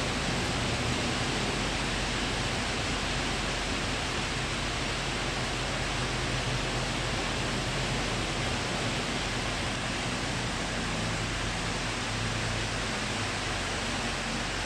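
Passenger coaches of a KTM intercity train rolling past close by: a steady rushing of wheels on rail with a low hum underneath, easing slightly as the last coach goes by.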